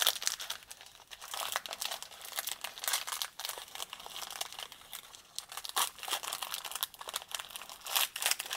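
Foil snack-bar wrapper crinkling and crackling in irregular handfuls as fingers peel it open.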